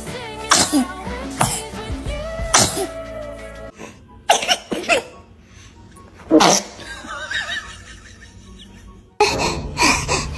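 A baby sneezing, several short sharp sneezes one after another, over background music. The music drops out after a few seconds and comes back near the end.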